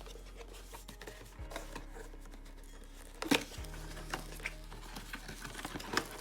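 Cardboard product box being opened and handled: scattered light scrapes and taps, with a sharper knock about three seconds in and another near the end, over faint background music.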